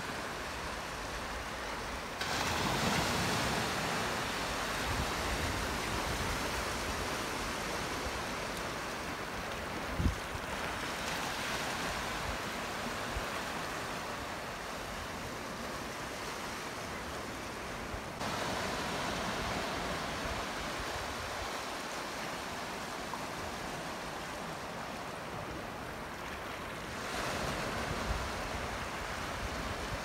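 Small sea waves breaking and washing on the shore: a steady rushing surf hiss that grows louder a few times, with one brief low thump about ten seconds in.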